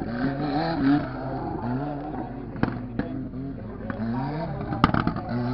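Off-road racing buggy's engine revving up and down over and over as it crawls over rough ground, with several sharp cracks, the loudest a little before the end.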